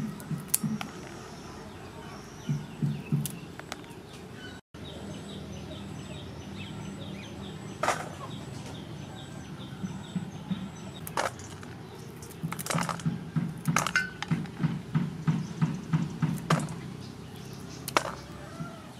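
Kitchen scissors snipping fresh green peppercorns off their stems, a sharp click every second or two. A low pulsing of about four beats a second comes and goes, and small birds chirp faintly.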